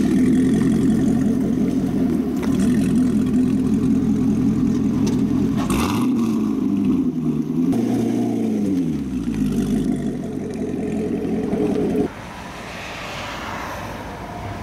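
2017 Corvette C7 Stingray's 6.2-litre LT1 V8 running through a newly installed AWE aftermarket exhaust: a steady deep rumble as the car pulls slowly away, its pitch falling about eight seconds in. About twelve seconds in the engine sound cuts off, leaving quieter steady roadside background noise.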